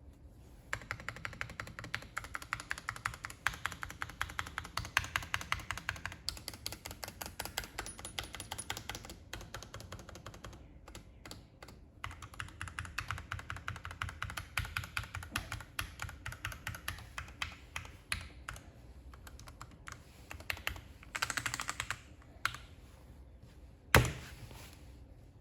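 Typing on a mechanical keyboard with lubed Gateron Ink Yellow linear switches on an aluminium plate in a Tofu96 case, with MT3 Dasher keycaps: fast runs of keystrokes, a pause of about two seconds midway, then sparser strokes and a single loud knock near the end.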